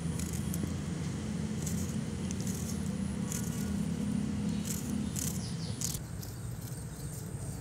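A small knife peeling and slicing a red onion by hand: a few short, crisp scrapes and crackles of the dry onion skin over a steady low rumble.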